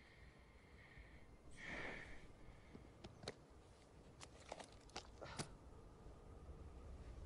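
Near silence, with a man's faint breath about two seconds in, then a few small clicks and rustles of flight gear as he stirs in the snow.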